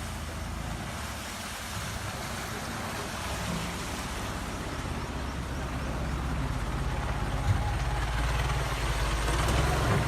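A tour boat's engine running steadily under the rush of water and air, growing gradually louder toward the end.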